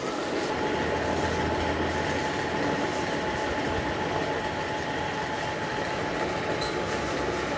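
Steady, even background noise with a faint steady hum running underneath, unchanging throughout, from some running machine or traffic.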